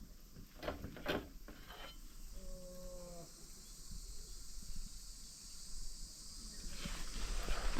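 Outdoor ambience with a steady, high insect chirring, a few light knocks in the first second or so, and a short pitched call about two and a half seconds in.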